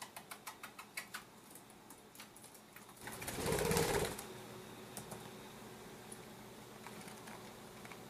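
Quiet typing clicks on a Toshiba laptop keyboard: a quick run of keystrokes at the start, then scattered single ones. About three seconds in comes a brief, louder rushing sound lasting about a second.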